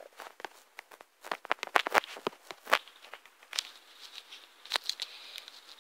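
Irregular light taps of fingertips typing on a tablet's touchscreen keyboard, a sharp click every quarter to half second.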